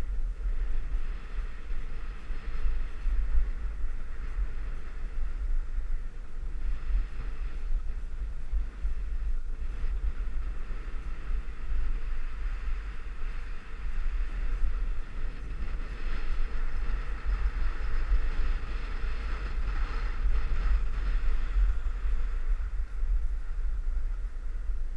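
Wind buffeting a moving camera's microphone during a downhill run on a groomed ski slope, a steady low rumble, with the even scraping hiss of edges sliding over packed snow.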